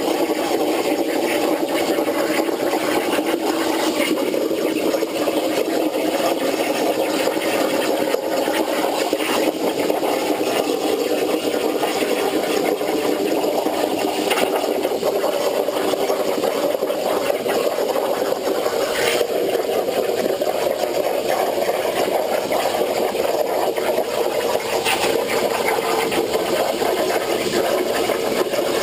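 CNC plasma torch cutting 3/8-inch hot-rolled steel plate: a loud, steady hiss and hum of the cutting arc, with a few brief clicks.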